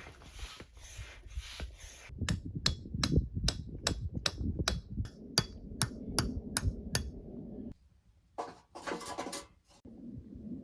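Rhythmic scraping strokes at first, then a run of about fifteen sharp knocks, roughly three a second. A few short rustling bursts follow near the end.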